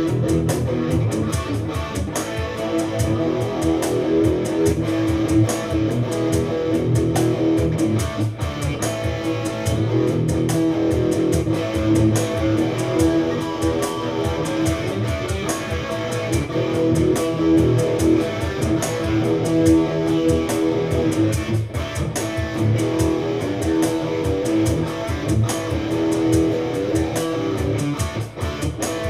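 Electric guitar improvising a continuous jam of picked notes, played on the neck pickup for a dark tone with definition.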